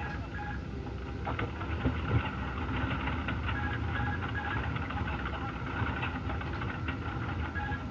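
Airliner cockpit-recorder audio: steady aircraft noise with a repeating on-off tone and a few sharp knocks, presented as the locked-out co-pilot trying to break down the cockpit door.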